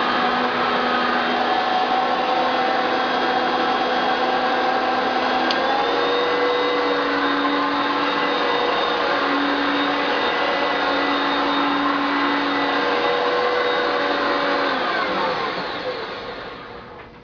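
Hoover Concept One Power Drive upright vacuum running steadily on its two-speed motor. Its pitch steps up about a third of the way in as it is switched to high speed. Near the end it is switched off and winds down with a falling whine.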